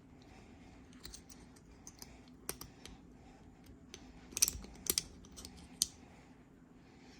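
Small metal clicks and clacks of Sig Sauer P938 pistol parts being handled and fitted together during reassembly, scattered and irregular, with a cluster of louder clicks about four and a half seconds in.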